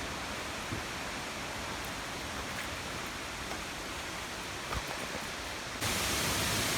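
Roaring mountain creek running high: a steady rush of water, which suddenly gets louder and brighter near the end.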